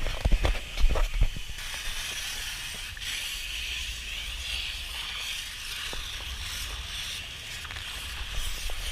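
Rushing, hissing water of a tube slide ride, steady after several thumps and knocks in the first second and a half.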